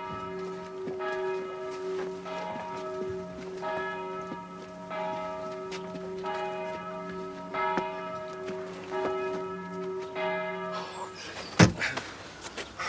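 Church bells ringing, struck about every second and a quarter with the tones hanging on between strokes. They stop near the end, and a single loud thump follows.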